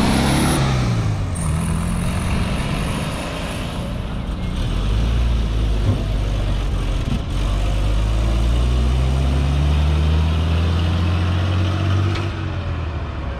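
Vehicle engines: an antique open touring car's engine as it pulls away, its pitch dropping in the first second or so, then a deep engine drone that slowly climbs in pitch through the middle and eases off near the end.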